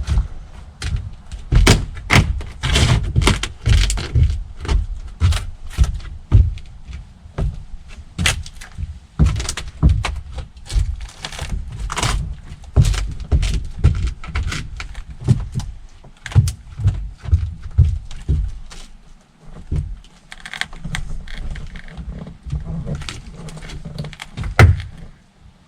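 An irregular series of knocks and thunks, several a second at times, with a short lull about 19 seconds in before they pick up again.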